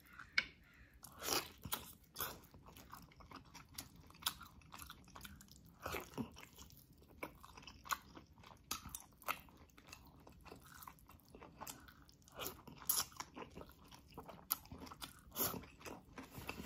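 Close-miked eating: biting meat off a braised beef rib bone and chewing it, with many irregular short mouth clicks.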